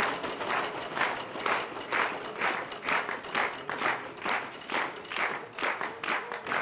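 Game-show prize wheel spinning, its flapper clicking against the pegs at an even pace of about two clicks a second.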